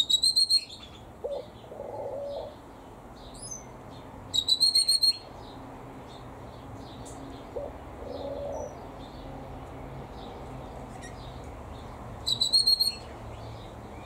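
Aviary birds calling: three short bursts of rapid, high-pitched chirps from a small bird, near the start, about four seconds in and near the end, over a background of faint twittering. Between them a dove coos softly a few times.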